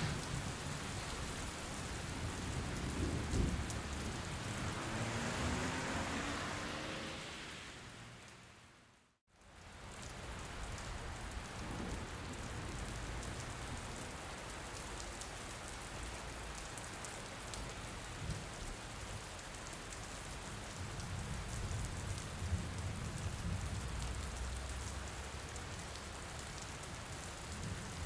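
Steady heavy rain, with a low rumble beneath it. About nine seconds in, it fades out to silence for a moment and fades back in.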